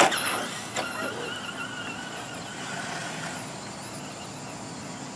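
Electric RC car with a brushless motor running on a dirt track: a sharp knock right at the start and another just under a second in, then a thin, high motor whine that wavers in pitch with the throttle and fades away after about three seconds.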